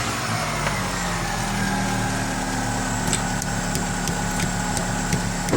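Chevrolet Cobalt engine idling through its freshly repaired exhaust and catalytic converter, the revs settling down after a blip. A few faint clicks come in the second half.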